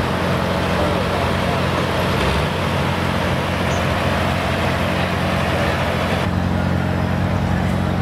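Super stock pulling tractor engine idling with a steady low drone after its pull. About six seconds in, the sound cuts to a second pulling tractor's engine idling.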